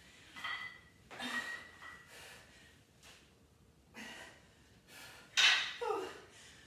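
A person breathing hard during a barbell clean and press: short, sharp exhales every second or two. The loudest comes about five seconds in and slides down into a short grunt.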